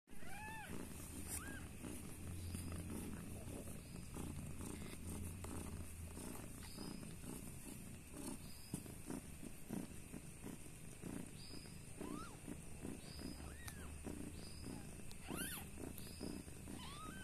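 A long-haired orange-and-white mother cat purring steadily while her newborn kittens lie against her belly, with a few short high mews rising and falling now and then, more of them near the end.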